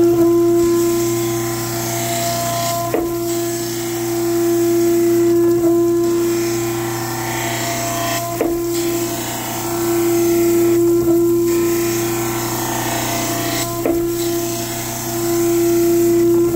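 Surface grinder wet-grinding a hollow precision prism under flood coolant: a steady hum that swells and fades as the table carries the work back and forth under the wheel, with a sharp click about every five and a half seconds as the table reverses.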